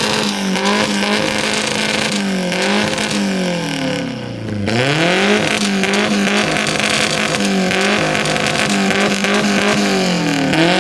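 Car engine revved over and over, its pitch rising and falling in repeated blips. It drops almost to idle about four and a half seconds in, then picks up again.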